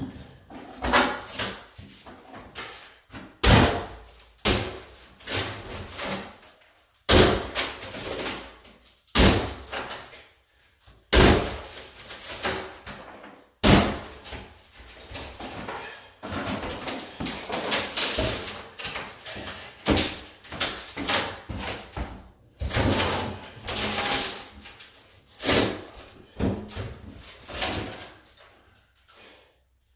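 A wooden cabinet being hacked and pried apart with a hand tool: irregular loud knocks and bangs with short scraping strokes between them, often a second or two apart.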